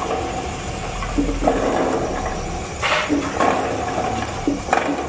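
Electric carrot juice extractor running steadily, its motor humming while a stream of juice pours from the steel spout into a stainless steel pot. Two brief louder noises stand out, about three seconds in and near the end.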